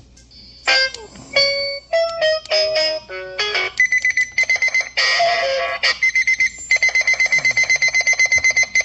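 Digital alarm clock sounding its alarm, pretty loud: a few short musical tones, then from about four seconds in a shrill steady beep, which breaks into rapid beeping of about eight beeps a second near the end.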